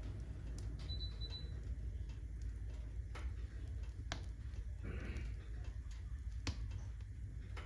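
Wood fire burning in a fireplace, crackling with irregular sharp pops, a few louder than the rest, over a low steady rumble.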